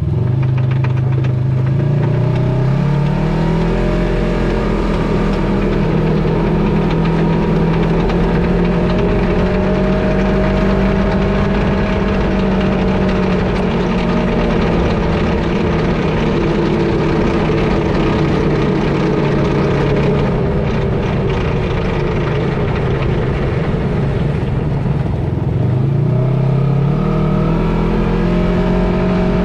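2018 Polaris XP 1000 High Lifter side-by-side driving in 2WD, heard from under the front end: its twin-cylinder engine runs steadily, rising in pitch as it speeds up a couple of seconds in and again near the end, over drivetrain noise from the front differential. In 2WD the front diff gives a rattle the owner finds questionable.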